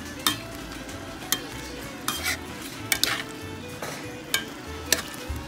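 Shrimp sizzling in a cast-iron skillet while being stirred. The utensil knocks and scrapes against the pan about seven times, irregularly, over the steady sizzle.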